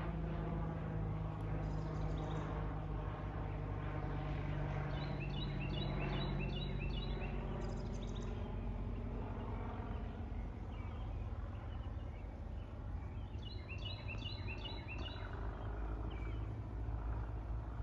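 Single-engine propeller plane's piston engine droning steadily overhead as it flies past. A small bird chirps in quick runs twice, about five seconds in and again about thirteen seconds in.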